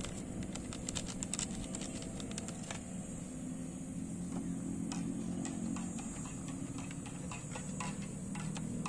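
Metal spoon stirring instant coffee in a stainless steel mug, clinking and scraping against the inside in quick, irregular light ticks, over a steady low background rumble.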